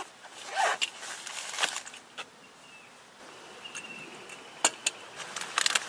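Light clicks and taps of coffee-making things being handled, a quick cluster of them near the end, over a faint outdoor background.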